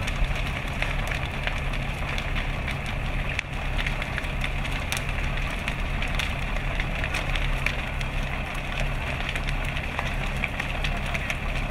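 Burning hay barn crackling and popping with many small sharp snaps, over the steady low drone of a fire truck's engine running.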